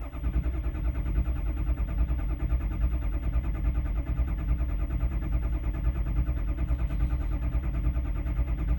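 Ford 6.0 Power Stroke V8 diesel being cranked by the starter, turning over in an even rhythm without firing: the crank-no-start condition.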